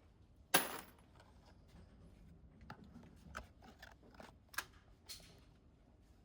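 Metal clicks and clinks of handling: one sharp clack about half a second in, then a few lighter clicks spread through the rest.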